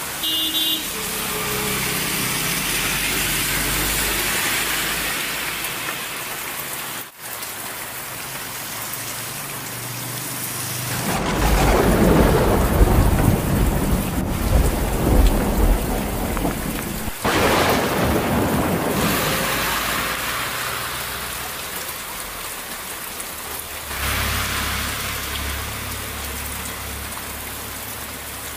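Steady heavy rain falling, with thunder rumbling for several seconds partway through.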